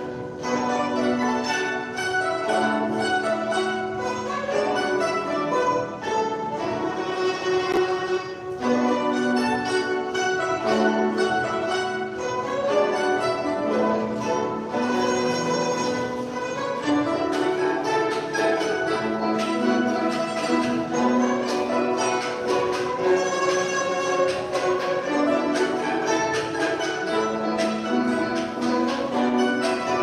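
Guzheng ensemble playing a piece arranged in five parts: many zithers plucked together, with quick runs of short notes over a repeating lower line.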